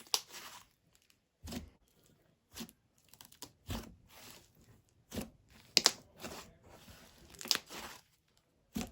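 Soft, sizzly butter slime being played with, giving short, sharp crackling pops at irregular intervals, about a second apart.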